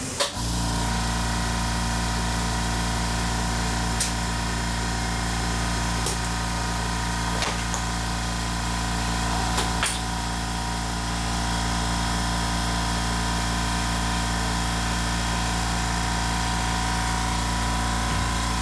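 A workshop machine's motor hums steadily, coming on abruptly at the start. Over it come a few sharp metallic clicks and clanks of tools and parts being handled.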